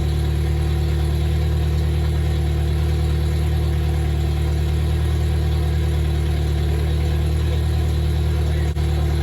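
Freshly rebuilt Toyota 22RE 2.4-litre four-cylinder engine idling steadily, warmed up to the point where the thermostat has just opened.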